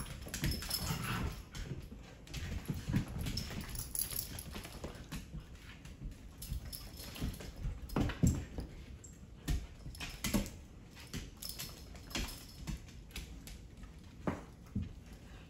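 Dogs playing rough on a hardwood floor: claws clicking and scrabbling on the wood, with irregular thumps and bumps as they wrestle over a toy.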